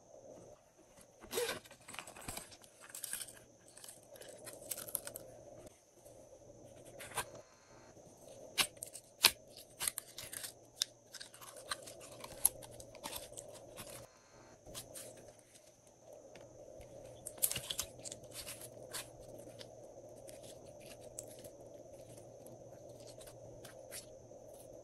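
Sticky slime being handled: pink slime pulled out of a clear plastic cup and laid onto glossy slime, with scattered sharp crackles, pops and clicks of slime and plastic.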